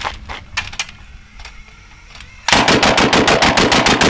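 Home-built twin-rifle rig, both barrels going off together, opening up about two and a half seconds in with a rapid, even string of loud shots at about eight a second. Before the burst, only a few faint clicks.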